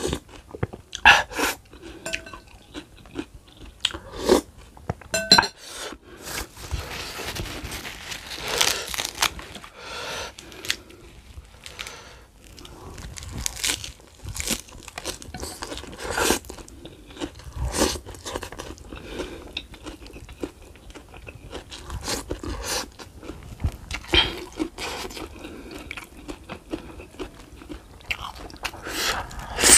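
A person eating close to the microphone, chewing and crunching a meal of beef foot, chili sambal and raw vegetables, with irregular sharp mouth clicks and smacks.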